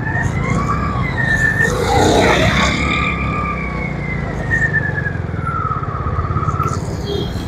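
Busy street traffic: car and motorcycle engines rumbling, one vehicle passing close about two seconds in, with several long high-pitched tones sounding over the traffic.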